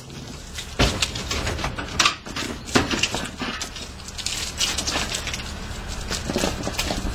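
Irregular knocks and clatter of a magnetic appliance sack truck handling a white-goods appliance, with a few sharp bangs in the first three seconds.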